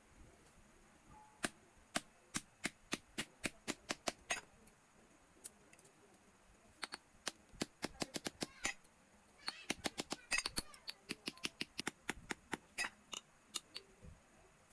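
Runs of sharp hammer strikes on steel, about three a second, in several bursts with short pauses between them.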